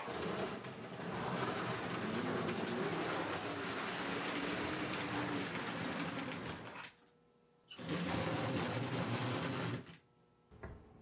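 American Flyer model steam locomotive running on the layout's track: a steady whirr of its motor and gears with wheels clattering on the rails. The sound cuts out about seven seconds in, picks up again, and cuts out once more near the end.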